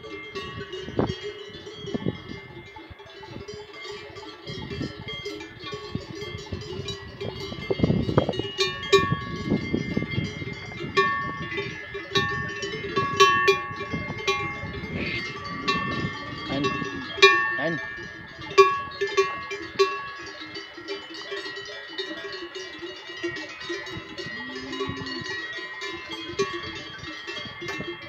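Several cowbells on grazing cows clanking and ringing irregularly, bells of different pitches overlapping as the animals move and feed.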